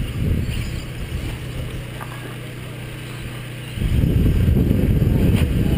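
Radio-controlled off-road racing cars running on a dirt track, heard with a steady low hum at first; about four seconds in a louder low rumble sets in, with a couple of short clicks near the end.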